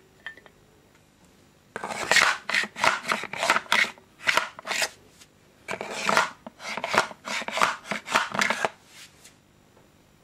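Gas blowback magazines being handled and slid into the pistol grip of a WE SMG-8 airsoft gun: a run of quick scrapes and clicks in two bursts of a few seconds each.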